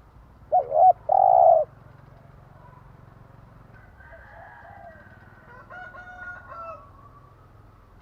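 Spotted dove cooing: a loud call about half a second in, a short note followed by a longer held note, then fainter cooing from about four to seven seconds.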